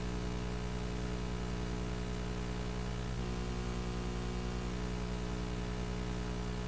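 Steady electrical hum with hiss from a microphone and sound system: a low mains buzz with its overtones, unchanging throughout.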